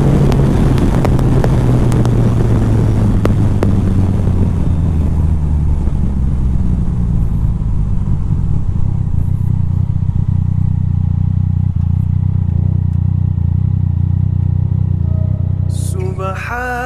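Yamaha Tracer 900 GT's three-cylinder engine running as the bike rides along, the engine note dropping slightly in the first seconds with heavy wind rush that then eases, leaving a steady lower engine hum as it slows. Music begins near the end.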